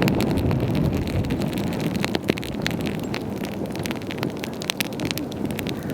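Wood campfire crackling, with many sharp, irregular pops and snaps over a steady low rumble.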